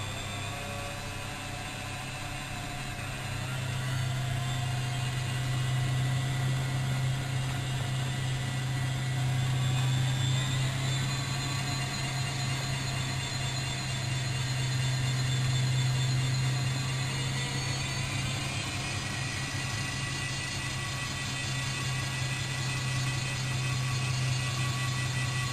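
Bosch WFM3010 front-loading washing machine running: a steady low hum with a motor whine on top that rises in pitch in stages as the drum speeds up, about three seconds in, again around ten seconds and again near eighteen seconds.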